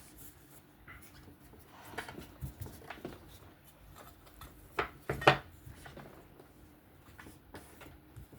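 Scattered light clicks and knocks of a knife and whetstones being handled and set down on a hard surface, with two sharper knocks close together a little past the middle.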